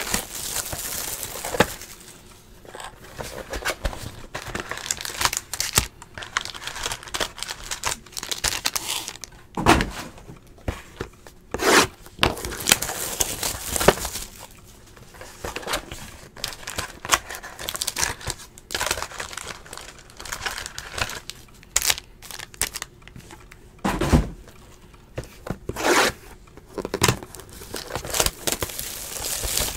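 Plastic shrink-wrap and cardboard of a sealed Panini XR football hobby box being torn open and crinkled by hand, in irregular rustling bursts, with a few dull knocks of the box being handled.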